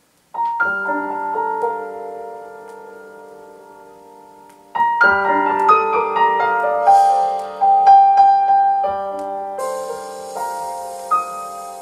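Solo piano intro of a song played from a vinyl LP on a Kronos turntable through hi-fi loudspeakers. A chord sounds about half a second in and slowly fades, a second chord comes near five seconds, then a line of single notes, and a high shimmering sound joins near ten seconds.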